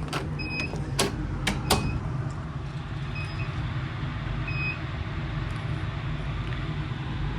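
Radionics D720 security keypad sounding its exit-delay warning: four short high beeps about a second and a half apart, which then stop, while the system arms. Under them is a steady low hum, with a few sharp knocks in the first two seconds.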